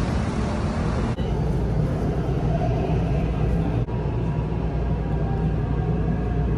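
Steady low rumble of a moving metro train heard from inside the car, with faint high tones running over it. It starts after a cut about a second in; before that there is a brief stretch of street noise.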